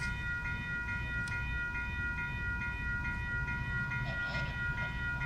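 Level-crossing warning bell ringing steadily, a repeating ding about twice a second, over a low rumble as a commuter train approaches the crossing.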